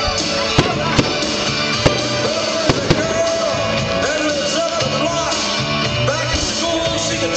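Fireworks going off over loud rock music with singing: about five sharp bangs in the first three seconds.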